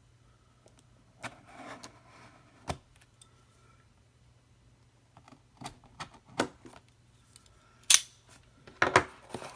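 Hands handling a cardboard product box while working it open: scattered taps, knocks and short scrapes with pauses between, the sharpest knocks near the end.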